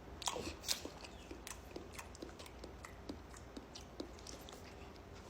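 A person's mouth making wet smacking, nibbling noises while pretending to eat a dog's nose: an irregular run of short clicks, two louder ones in the first second.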